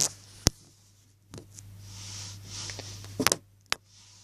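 Slime being handled and stretched: a faint soft hiss of squishing and a few sharp clicks.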